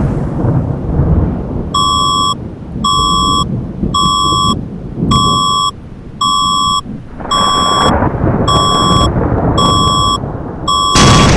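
Philippine EAS emergency alarm beeping about once a second, each beep a half-second electronic tone, starting about two seconds in. Under it runs a low rumble of thunder and explosion sound effects that swells again near the end.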